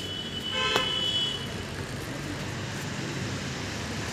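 A vehicle horn sounds briefly about half a second in, over the steady hum of road traffic, with a thin high steady tone running alongside it until about a second and a half in.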